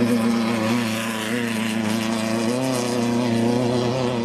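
A race vehicle's engine running steadily at a low, even pitch, wavering slightly now and then.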